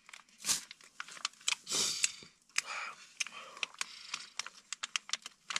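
Plastic food wrapper crinkling and crackling in the hands while a person bites and chews the food in it, with many short sharp clicks and a few brief rustles.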